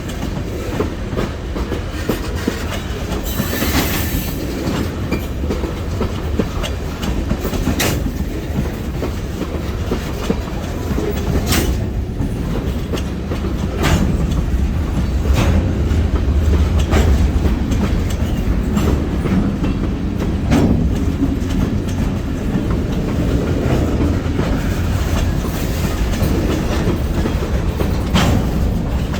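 Freight train rolling past, a steady low rumble with wheels clicking over rail joints every few seconds; the rumble grows louder about halfway through.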